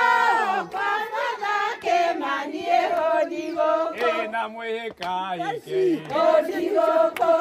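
A group of women singing and chanting together.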